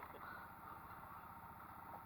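Faint, steady low hum of the boat's outboard motor idling while backtrolling.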